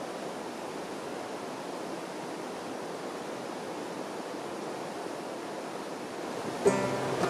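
Stream water rushing steadily over rocks. Near the end, music starts with a sharp first note.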